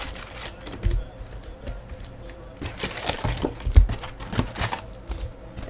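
2015 Donruss Soccer foil card packs being pulled out of a hobby box and stacked on a table: irregular rustling and clicking of the packs, with a few sharper knocks.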